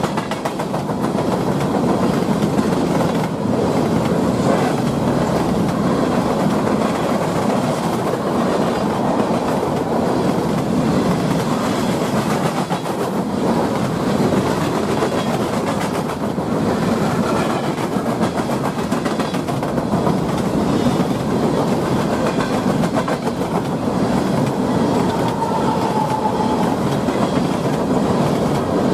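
Freight train of open-top hopper cars rolling past at close range: steady rumble and rattle of the cars, with a constant run of wheel clicks over the rail joints.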